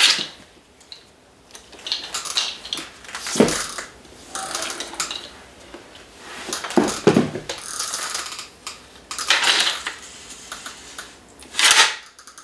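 A string of short swishes and plastic clatters from a toy katana being swung and handled, several separate bursts a few seconds apart.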